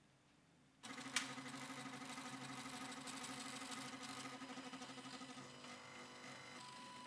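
Stepper motors of a printer built from old CD-ROM drives driving its axes: a mechanical buzz starts suddenly about a second in with a sharp click, pulses evenly, then eases to a quieter steady whine near the end.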